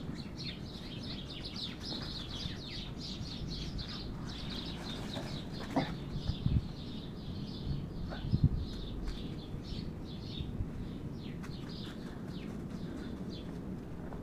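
A flock of sparrows chirping over and over, busiest in the first half, with a few dull low thumps about halfway through.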